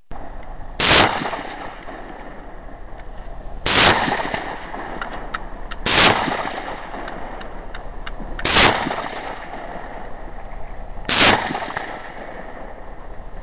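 Five single gunshots, spaced two to three seconds apart, each followed by a short echo.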